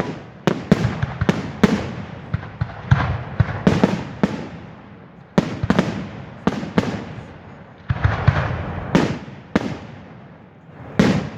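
Fireworks display: a rapid, irregular series of bangs from exploding shells, some followed by crackling and rumbling echoes, with a last loud bang near the end.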